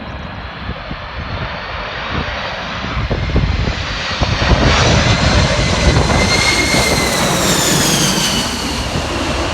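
Jet airliner passing close by, its engine noise swelling from about three seconds in to a loud peak, with a high whine that drops in pitch as it goes past.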